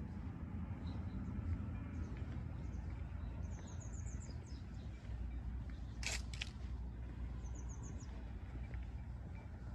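A small bird gives two short, rapid trills of high chirps over a steady low outdoor rumble, with two sharp clicks in between.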